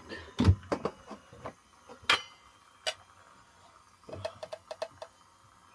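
Hard clicks and knocks from objects being handled: a heavy knock about half a second in, single sharp clicks around two and three seconds, then a quick run of small clicks about four seconds in.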